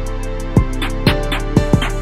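Background music with a steady drum beat, about two hits a second, under held instrumental chords.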